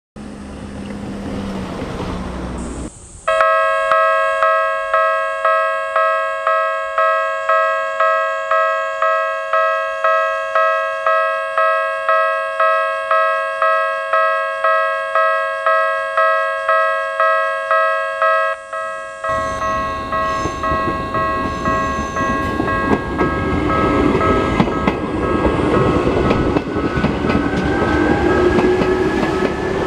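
Japanese level-crossing warning bell with the Tokyu-type sound, starting about three seconds in and ringing at about two strokes a second. About two-thirds of the way through, a former Tokyu 8000 series electric train runs over the crossing, its noise covering the bell, with a rising whine near the end.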